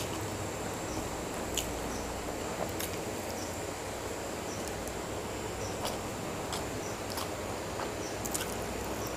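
Close-miked eating sounds of mutton curry and pulao eaten by hand: sparse short clicks of chewing and lip-smacking, about half a dozen, over a steady hiss.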